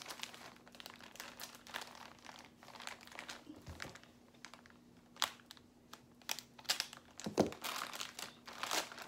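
Clear plastic poly bag crinkling as it is handled and pulled open, in irregular crackles that grow denser near the end, with a single soft knock about seven seconds in.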